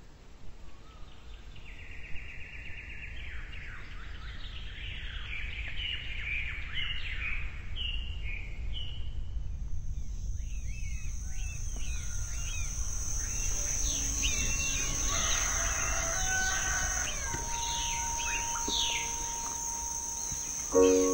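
Small birds chirping and trilling in bursts. About halfway a steady high insect drone sets in under further bird calls and a rooster crowing. A loud musical tone comes in at the very end.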